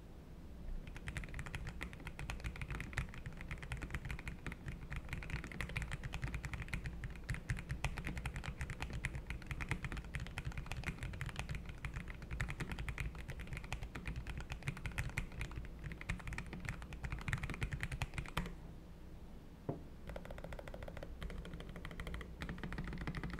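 Typing on a Lofree Flow gasket-mounted low-profile keyboard with Kailh Full POM linear switches, PBT keycaps and a PC plate, built for a soft pebble-like typing sound. A fast, even run of keystrokes breaks off briefly about 18 seconds in, then the typing picks up again.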